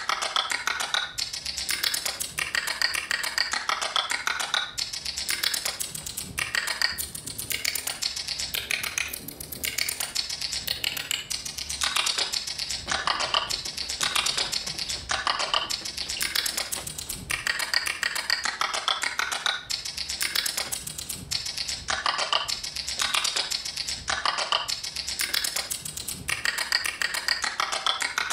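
Performance soundtrack of dense, rapid clicking and tapping, in phrases of a second or two with short breaks between them.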